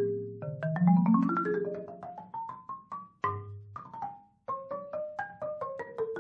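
Solo marimba played with mallets: a quick run of single notes climbing in pitch over ringing low bass notes, a deep bass note about three seconds in, a brief pause just after four seconds, then the quick notes resume.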